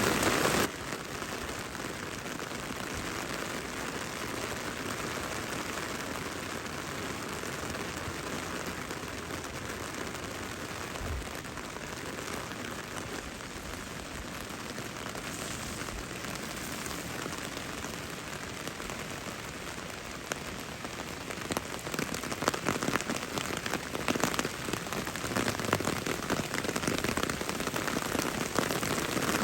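Steady rain falling, an even hiss of drops. The level drops suddenly about a second in, and in the last several seconds many sharp, closer drop impacts make it louder and more uneven.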